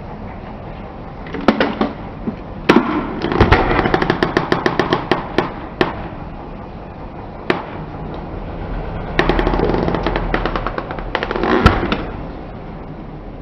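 Car tyre rolling over and crushing crunchy objects: three bursts of rapid cracking and popping, over a steady low vehicle noise.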